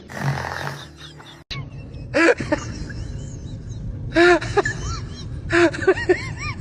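A breathy snore. After an abrupt break about a second and a half in, a string of short, high, squeaky whimpers follows, each rising and falling in pitch, coming in clusters of two to four.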